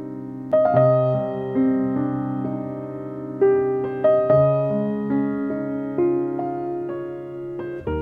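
Background piano music: a slow melody of struck notes and chords, each ringing and fading as the next comes in.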